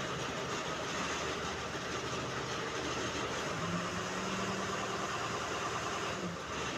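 Heavy machinery engine running steadily, with a low steady hum joining in just past halfway and cutting off shortly before the end.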